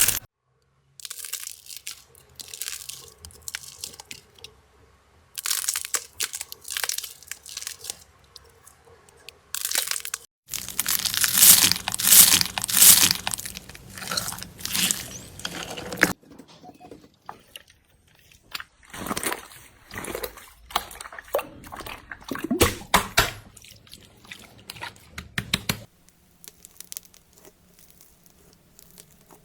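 Slime being squeezed and pressed, making crunchy crackling and squishing sounds, in several short clips cut one after another.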